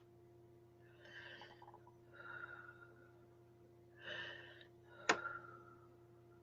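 Faint breaths, drawn in and let out four times, with a sharp click about five seconds in, over a low steady hum.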